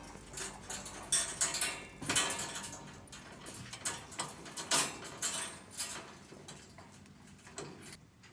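Irregular clicks, taps and rustles of hands working at a wire cat cage and a fabric floor mat. The sounds stop abruptly about eight seconds in.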